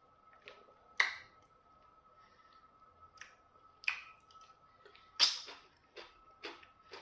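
Close, wet mouth smacks and chewing of someone eating pounded yam fufu and slimy okra soup by hand: a series of sharp smacks, the loudest about a second in, near four seconds and just past five seconds, with smaller ones between.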